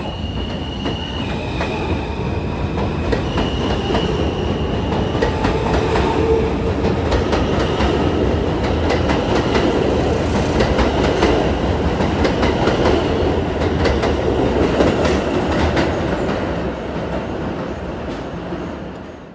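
New York City subway train running past, wheels clicking over the rail joints, with a steady high whine in the first few seconds. The sound grows louder, holds, and cuts off abruptly at the end.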